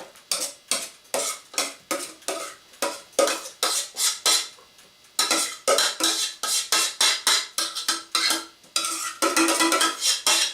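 A metal spoon clinking and scraping against a metal cooking pot in quick strokes, about three a second, the pot ringing after the knocks, as cooked oatmeal is spooned out.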